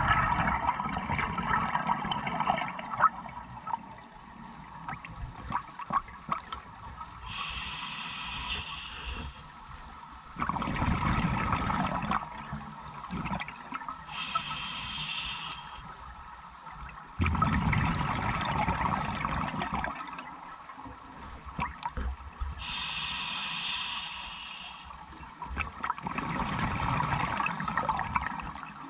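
Scuba diver breathing through an open-circuit regulator, one slow breath every eight or nine seconds. Each breath is a short hiss of air drawn through the regulator, followed by a longer bubbling, gurgling rush of exhaled air venting into the water.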